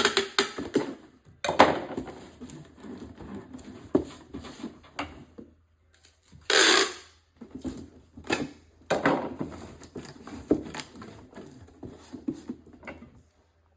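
Packing a cardboard box: packing tape pulled off the roll in several loud rips, with rustling and knocks of cardboard in between.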